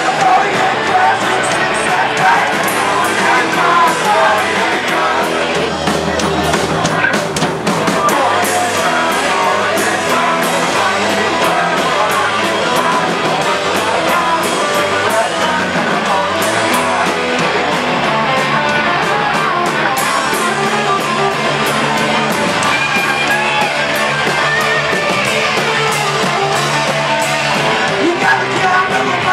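Live rock band playing loudly, electric guitars with a singer at the microphone.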